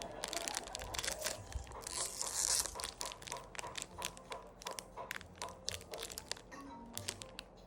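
Close, crisp crackling and crinkling made up of many sharp ticks, with a brief louder rustle about two seconds in; the ticks thin out and fade near the end.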